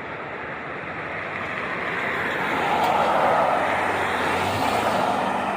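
A vehicle going by on the street: a hiss of tyre and engine noise that swells to its loudest about three seconds in, then eases slightly.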